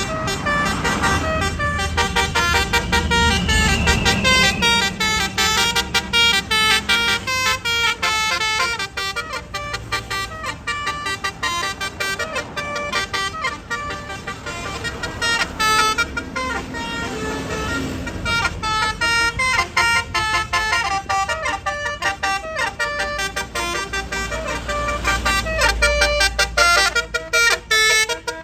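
Tour bus 'basuri' telolet horn, a set of musical horns playing a fast tune of short pitched toots, note after note without a break. The bus's engine runs underneath, louder about 25 seconds in.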